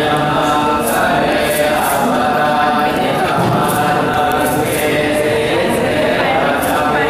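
Thai Buddhist monks chanting in unison, a steady, continuous group recitation of a blessing in Pali.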